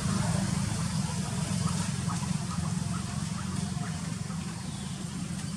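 Steady low mechanical hum, getting slightly quieter toward the end, with a few faint short higher-pitched sounds about two to three seconds in.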